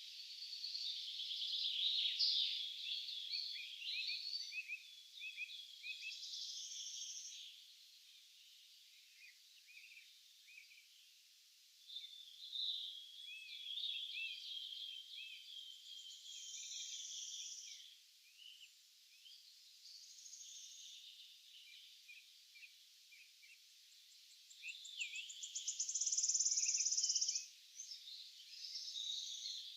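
Several songbirds singing over one another in a forest chorus, a steady stream of high chirps, sweeping notes and trills. A loud, fast trill comes about 25 seconds in and lasts about two seconds.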